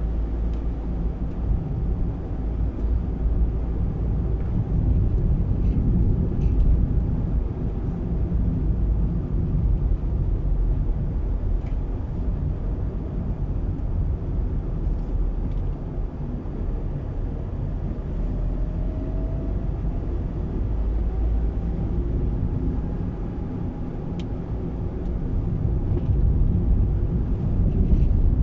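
A car driving along a road: a steady low rumble of engine and tyres, with a brief rising whine about two-thirds of the way through.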